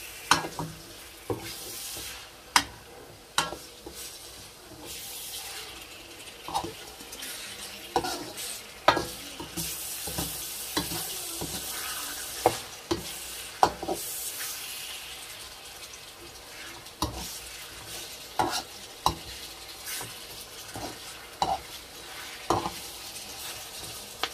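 Cubed meat and onions sizzling steadily in a hot steel wok, with a metal slotted spoon scraping and clinking against the pan at irregular moments as it is stirred.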